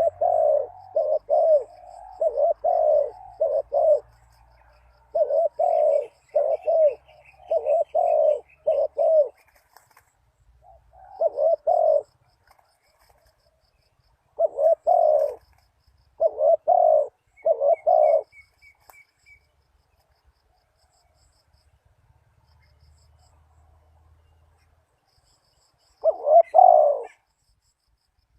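Spotted dove cooing in repeated phrases of short, low coos, with pauses between phrases and a quiet spell of several seconds before a final phrase near the end. A smaller bird chirps faintly in the background.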